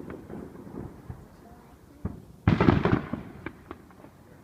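A firework bursting about two and a half seconds in: one loud bang with crackling that dies away over about a second. A few smaller pops come before and after it.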